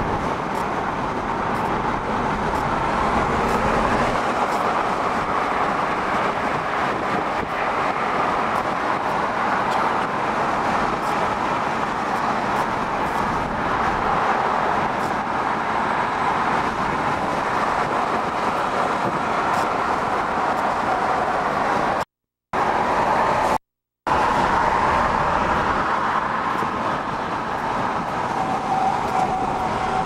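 Steady road and tyre noise of a car cruising on a freeway, heard from inside the car. The audio drops out completely twice, briefly, about two-thirds of the way through.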